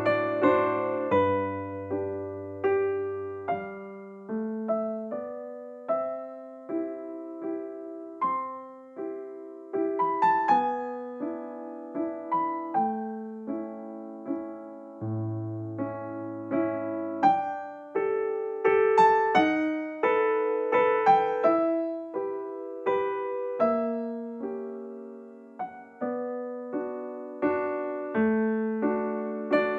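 Background piano music: a gentle melody of single struck notes over slower bass notes.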